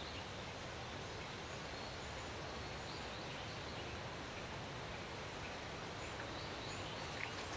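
Steady outdoor background noise, an even hiss, with a few faint high chirps from birds. A few light clicks come in near the end.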